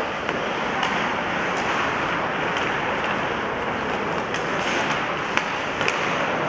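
Live ice hockey rink sound: a steady wash of arena noise and skating, broken by several sharp clacks of sticks hitting the puck.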